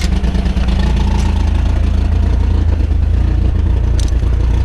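Competition rock crawler's engine running steadily at low revs, with a couple of brief sharp clicks, one right at the start and one about four seconds in.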